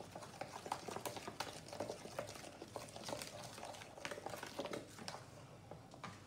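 Wooden spatula stirring a thick, pasty marinade in a plastic bowl: faint, irregular scrapes and clicks, growing sparser near the end.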